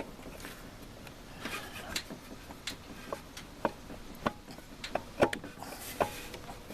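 Irregular light clicks and taps of metal transmission parts being handled and set in the case during a 4L60E rebuild.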